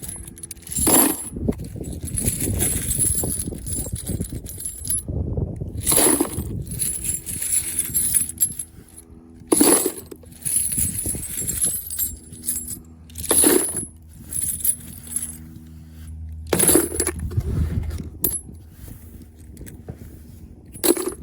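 Spent brass cartridge casings clattering and clinking together, in about six separate handfuls, with rustling and handling noise between them.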